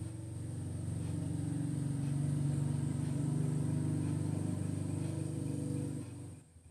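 A low motor hum with several steady pitches, growing louder over the first two seconds and stopping abruptly about six seconds in.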